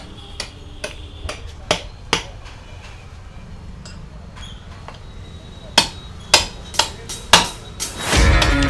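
Sharp metallic knocks and clinks of tyre tools working a motorcycle tyre on its wheel during a manual tyre change: a quick run of about six strikes, a pause, then about five more. Music starts at the very end.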